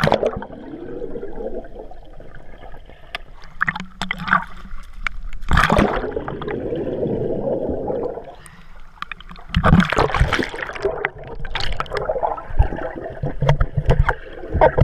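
Sea water splashing and gurgling around a swimmer ducking under, in bursts: one at the start, a longer one about five and a half seconds in, and another about ten seconds in, with smaller splashes between.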